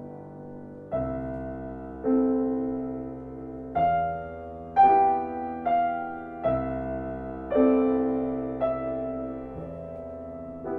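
Background piano music: slow, gentle notes and chords, each struck and left to fade, about one every second.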